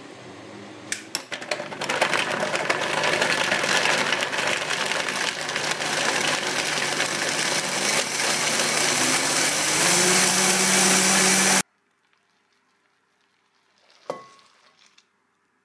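Countertop blender motor starting about a second in and blending tinned plum tomatoes, cashews and herbs into a smooth sauce; its pitch rises toward the end and it cuts off suddenly. Near the end, a short knock with a brief ring as spaghetti drops into a glass bowl.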